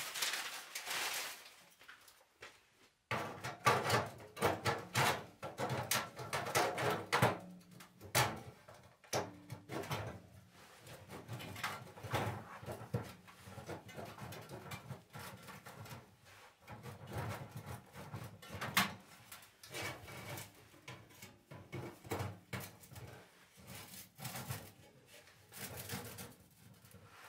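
Plastic wrapping crinkling for the first few seconds. Then, after a sudden change about three seconds in, a long run of irregular clunks, scrapes and rattles as a sheet-metal tent stove and its stovepipe, with a flexible corrugated elbow, are handled and fitted together. A faint low steady hum runs underneath.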